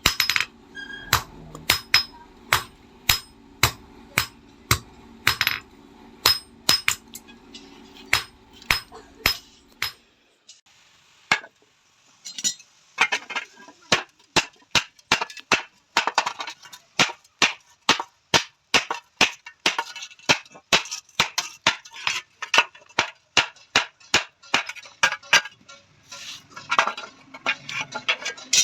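Hand hammer striking a sheet-iron roti tawa in a steady rhythm. The blows come about twice a second over a steady low hum, then stop briefly, then resume in a quicker run of about three a second.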